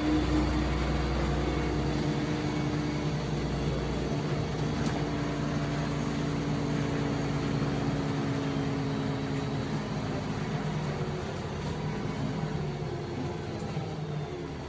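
LiAZ-5292.65 city bus's engine and drivetrain heard from inside the passenger cabin: a steady hum with a low whine. The hum slowly sinks in pitch and level as the bus slows, and the deep rumble drops away partway through.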